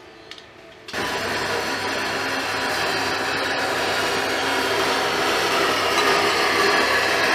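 A power tool starts suddenly about a second in and runs on steadily, working the intercooler piping.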